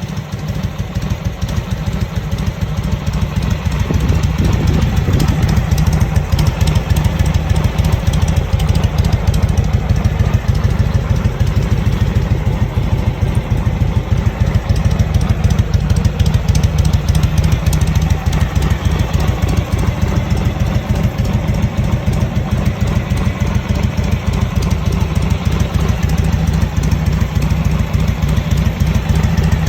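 1936 Harley-Davidson EL Knucklehead's 61-cubic-inch overhead-valve V-twin idling steadily, with an even, loud pulsing exhaust beat.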